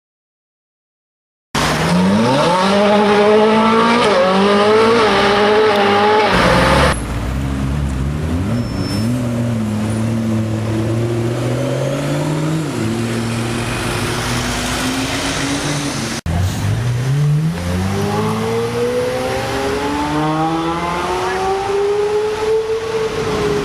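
Supercar engines revving and accelerating hard in a tunnel, in three hard-cut clips after about a second and a half of silence. First the pitch climbs in steps through quick upshifts, then comes a lower, steadier engine note, and near the end one long, rising pull through the revs.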